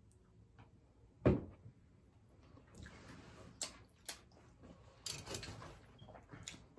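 A glass hot sauce bottle set down on the table with one sharp knock, followed by scattered light clicks and rustling as food is handled and eaten.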